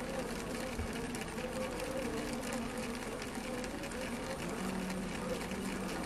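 Honey bees buzzing with a steady, wavering hum, mixed with a rapid patter of faint taps that the bees are making.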